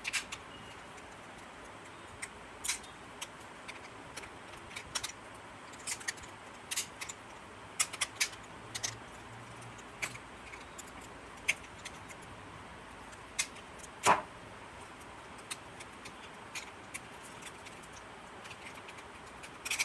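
Scattered small clicks, taps and rattles of hard plastic as a rechargeable torch's plastic housing and its parts are handled and pressed together by hand, with one louder knock about fourteen seconds in.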